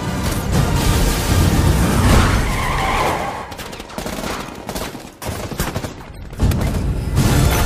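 Movie-trailer sound mix: rapid bursts of automatic gunfire over dramatic music, with a sudden loud hit about six and a half seconds in.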